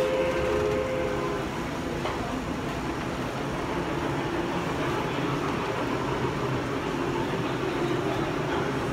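Model railway train sound: a steady rumble of a running train, with a held whistle-like tone that fades out in the first second or two.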